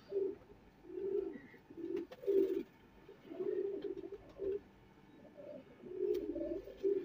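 Domestic pigeons cooing: a series of low coos, roughly one a second, with a short pause about five seconds in.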